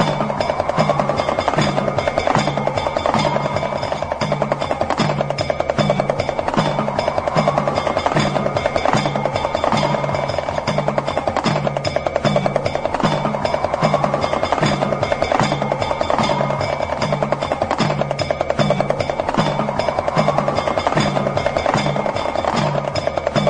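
Damru, the small hourglass-shaped double-headed drum, rattled in a fast, continuous roll over a steady low drum pattern and a drone tone that rises and falls every few seconds.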